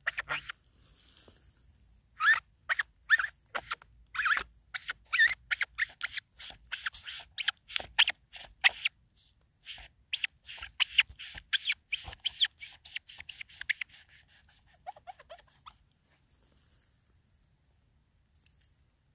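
Kitchen knife sawing through the fresh, moist flesh of a resinous polypore (Ischnoderma resinosum) bracket on a log, each stroke giving a short squeak. The squeaks come in a fast run and die away a few seconds before the end.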